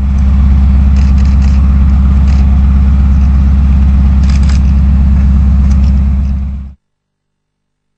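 Tank engine running at a steady idle, a loud, even low rumble with a fast regular pulse. It cuts off suddenly about seven seconds in.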